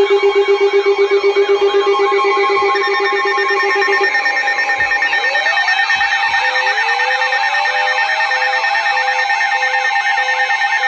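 Several weather radios and emergency alert receivers sounding their alarm tones at once as a tornado warning test activates: steady tones layered with a fast warbling alarm. A pulsing low beep stops about four seconds in, two tones slide upward soon after, and a slower on-off beep starts.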